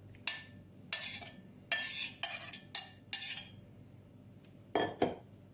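A metal spoon stirring and scraping in a saucepan of freshly boiled turnip-and-sugar syrup: a run of short scrapes and clinks, then two more near the end.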